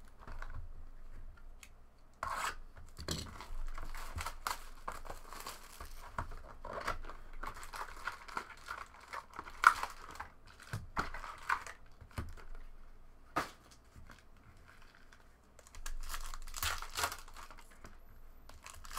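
Panini Prizm basketball hobby box being torn open and its foil-wrapped card packs crinkling and rustling as they are pulled out and stacked on the table. Irregular sharp clicks come as packs and cardboard are set down, the loudest about ten seconds in.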